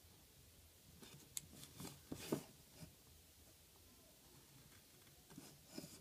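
Faint pencil strokes scratching on paper as short lines are drawn along a straightedge: a quick cluster of scratches from about one second in, the loudest just past two seconds, then a few more near the end.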